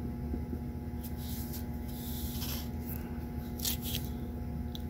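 Quiet hand soldering of transistor leads on a circuit board: a few short, soft hisses over a steady low electrical hum.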